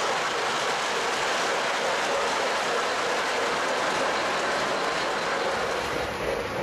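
O gauge model Milwaukee Road Hiawatha passenger cars rolling past on three-rail track: a steady noise of metal wheels running on the rails. A lower hum joins near the end.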